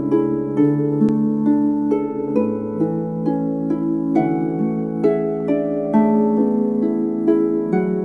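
Lyre music: a slow melody of plucked, ringing notes, about two a second, over held lower notes.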